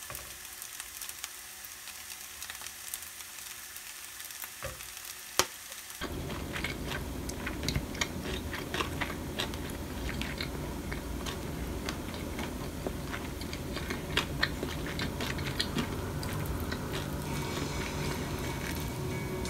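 Kimchi fried rice sizzling in a frying pan as it is stirred with a wooden spatula and perilla oil is added, with a sharp click about five seconds in. From about six seconds in, louder and fuller sound with many sharp clicks of a wooden spoon against a ceramic bowl.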